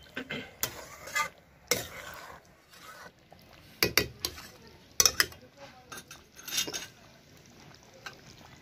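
A metal spatula stirring a thick chicken gravy in a metal kadai: irregular scrapes and clanks of the spatula against the pan, the loudest a cluster about four to five seconds in.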